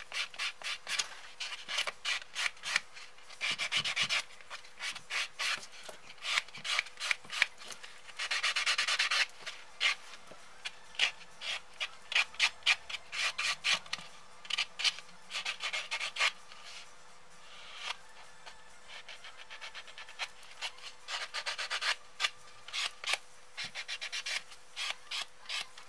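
Nail buffer block rubbing back and forth over a fingernail in quick strokes, smoothing off any jagged spots left after filing. The strokes come in runs, with a sparser stretch about two-thirds of the way through.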